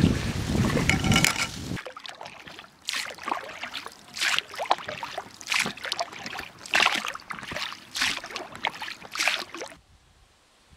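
Wind buffeting the microphone, then, from about two seconds in, oars of an inflatable rowboat dipping and splashing in the water, a stroke a little over a second apart. The splashing stops shortly before the end.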